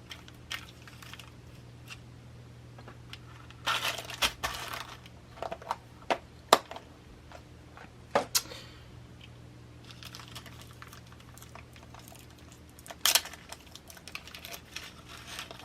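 Beading supplies being handled on a work surface: scattered sharp clicks and clinks of small metal chain and findings, with bursts of rustling packaging, the busiest about four seconds in and the loudest click about six seconds in.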